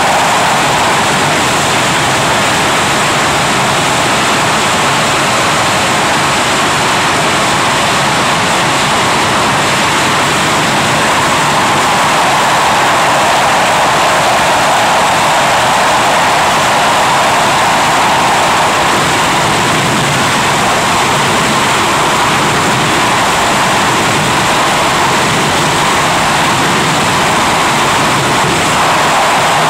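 English Electric Lightning's twin Rolls-Royce Avon turbojets running steadily during a ground run: a loud, even jet noise that swells slightly now and then.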